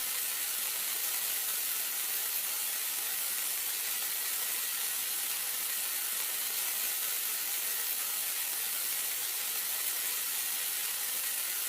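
Frying pan sizzling as a sound effect, pitched up: a steady, even hiss.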